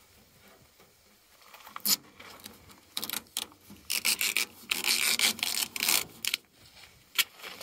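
Red stucco tape being pulled off its roll in several rasping pulls, from about three seconds in, and pressed down by hand over a paper stencil, with a sharp snap about two seconds in and another near the end.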